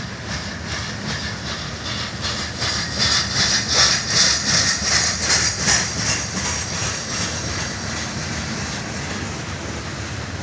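Freight train of tank cars rolling past, the wheels clicking in a quick even rhythm over the rail joints over a steady low rumble. A louder high-pitched rush swells about three seconds in and eases off after about six.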